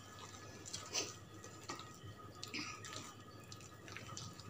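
Hand squeezing and mixing thick urad dal (medu vada) batter with chopped onion and herbs in a steel bowl: faint wet squelches with small, soft clicks.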